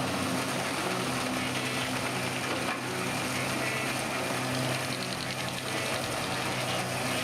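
Heavy machine's engine running steadily, a constant hum under an even mechanical noise.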